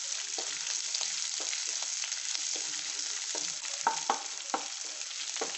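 Sliced onions and curry leaves frying in hot groundnut oil in a kadai: a steady sizzle while a wooden spatula stirs and scrapes through them, with a few sharper knocks about four seconds in.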